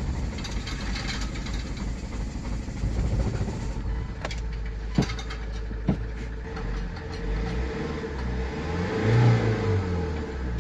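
Mahindra XUV500's 2.2-litre mHawk diesel engine running just after being started, missing on one cylinder that is not working properly. Two sharp knocks come about five and six seconds in, and the engine is briefly revved near the end.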